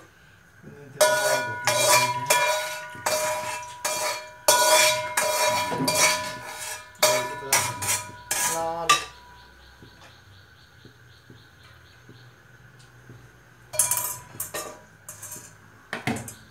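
Metal utensils clanking against an aluminium kadai: a steel slotted spoon and a metal bowl knock and scrape on the pan rim in a quick, ringing run of clatters for about eight seconds. A few more clinks come near the end.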